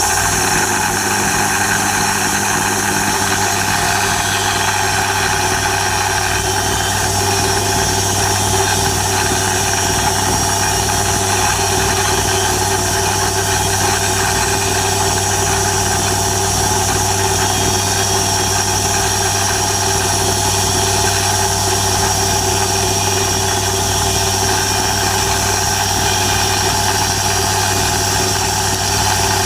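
Sawmill engine running steadily at an even speed, a constant mechanical hum with no change in pitch or load.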